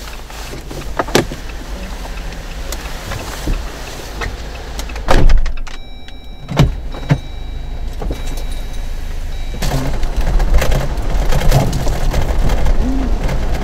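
Inside the cabin of a moving Jeep Wrangler: a steady low rumble of engine and road, really noisy, with knocks and rattles from the car. The loudest knock comes about five seconds in, and the noise grows louder and busier from about ten seconds in.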